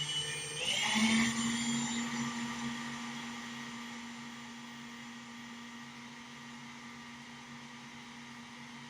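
Electric drill running while drilling into the wood of a rack case to widen a screw hole. The motor speeds up about a second in, then runs at a steady pitch, gradually getting quieter.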